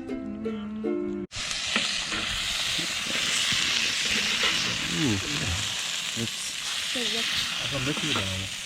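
Ukulele music that cuts off about a second in, then a steady sizzle of food frying in a pan.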